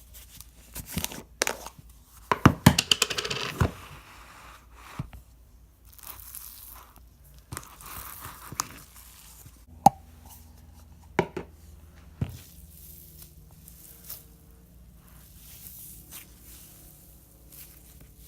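Cloud slime made with instant snow being stretched and squeezed by hand, giving tearing, crackling and popping sounds. It is loudest in a burst of crackles a few seconds in, with scattered sharp pops later.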